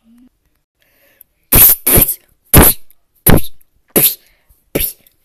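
A child's voice making loud, breathy mouth-noise sound effects for the blows of a fight, six short bursts in quick succession starting about a second and a half in.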